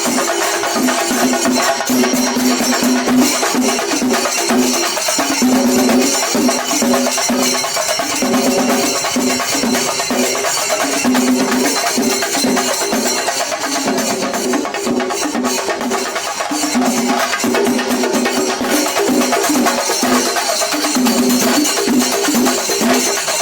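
Singari melam: chenda drums played fast and dense together with ilathalam hand cymbals, without a break, with short held notes shifting pitch through the rhythm.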